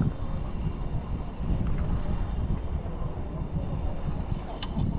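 Wind buffeting the microphone in a steady, uneven low rumble, with one sharp click near the end.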